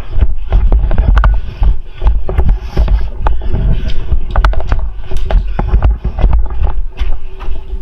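Loud low buffeting and rustling of a player moving with a body-worn camera microphone, with many irregular sharp clicks and knocks throughout.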